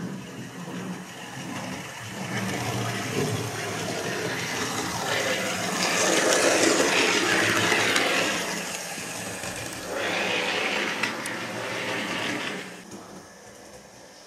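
Model GWR 56xx tank locomotive running on the layout's track, its motor and wheels making a steady whirring rush that grows louder as it passes close, loudest about six to eight seconds in and again around ten to twelve seconds, then falling away sharply near the end.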